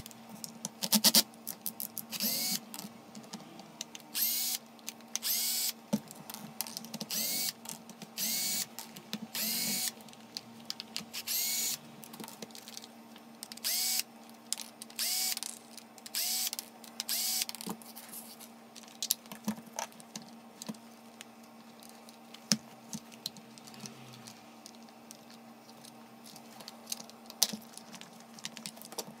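Cordless drill-driver backing screws out of a plastic power-tool housing, its motor running in about a dozen short bursts that each spin up in pitch. In the later part there are only scattered small clicks and knocks of screws and plastic parts being handled.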